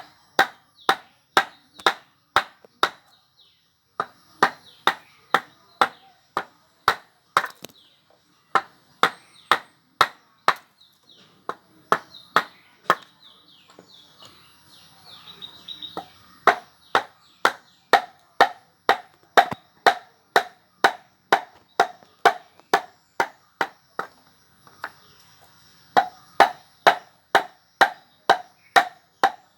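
Repeated sharp blows of a carving tool striking wood, about two a second, pausing now and then. Around the middle the blows give way briefly to fainter scraping before resuming.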